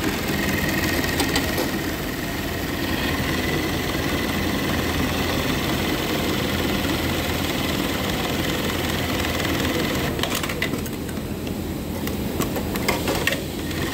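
An industrial automatic sewing machine for joining elastic bands runs steadily, with a constant whine over a low mechanical hum. Near the end the running sound thins out and a few sharp clicks sound.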